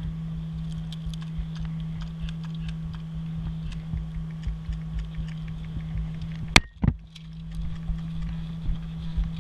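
Footsteps through grass and dry cut stalks, with irregular low thumps and wind buffeting a body-worn camera's microphone over a steady low hum. About two-thirds of the way in there is a sharp click, then a smaller one.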